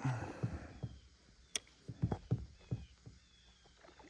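Scattered light knocks and thumps, about two a second, from gear being handled in a kayak, with one sharp click about a second and a half in.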